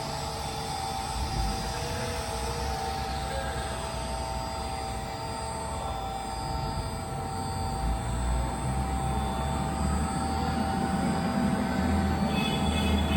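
A welding positioner's electric drive motor and gearing run with a steady whine, its pitch sliding down and later up as the variable speed is changed. A low hum grows louder in the second half.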